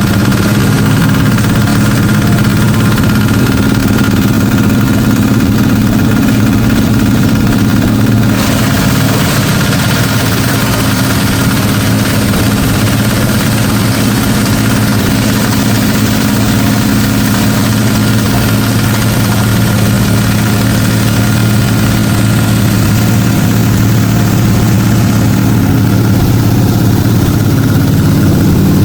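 Waste sorting machine with its conveyor running: a loud, steady engine-like machine drone with a constant hum that barely changes.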